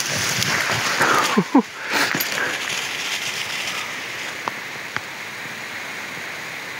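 Wind buffeting the microphone, with a short gliding pitched sound about a second and a half in.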